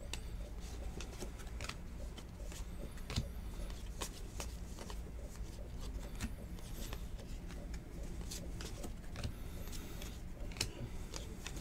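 Cardboard trading cards being flipped and slid one behind another in the hands, making irregular light clicks and flicks, over a steady low hum.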